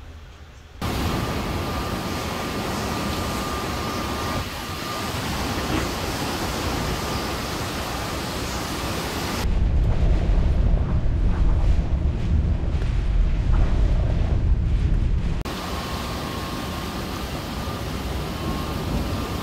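Hurricane-force wind and driving rain blowing as a loud, steady hiss, cut together from several phone clips, with a faint steady whistle in some of them. For about six seconds in the middle, gusts buffet the microphone with a heavy, fluctuating low rumble.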